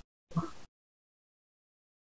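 A brief, clipped fragment of a voice about half a second in, cut off abruptly. Then dead digital silence as the microphone feed drops out.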